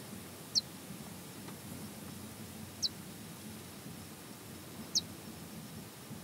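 A small bird's short, high whistled note, falling in pitch, repeated three times about two seconds apart over a steady low background rumble.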